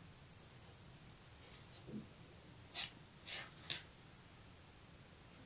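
Knitting needle and yarn being worked by hand while picking up stitches: a few faint short scratches and clicks, the clearest three coming close together a little under three seconds in, over faint hiss.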